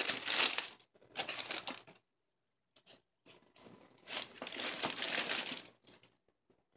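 Tissue paper in a sneaker box rustling and crinkling as a hand pulls it back from the shoes. It comes in three bursts, with a quiet pause of about two seconds before the last.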